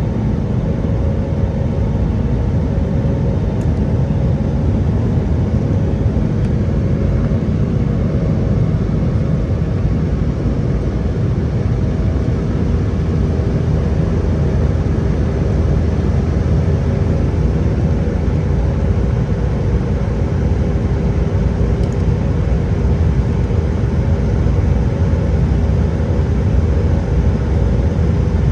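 Steady cabin noise inside an Airbus A320-200 in flight: the engines' drone and rushing airflow, low and even, with a few faint steady tones held through it.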